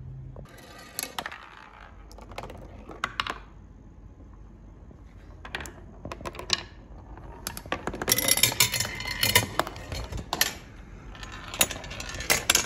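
Glass marbles rolling and clattering down the wooden ramps of a marble run: scattered clicks at first, then a dense stretch of rattling about eight to ten seconds in, then a few more sharp clicks near the end.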